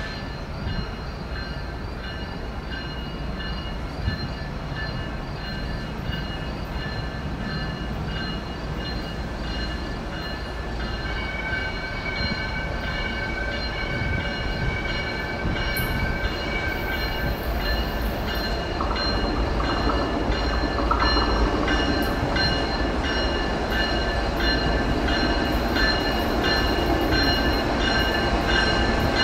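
Union Pacific coke train's diesel locomotives approaching: a low rumble that grows steadily louder, with high ringing tones repeating throughout.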